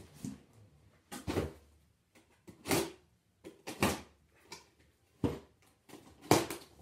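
Plastic-wrapped metal parts of a lat tower attachment being handled and lifted out of a cardboard shipping box: a series of short knocks and rustles about once a second, the loudest near the end.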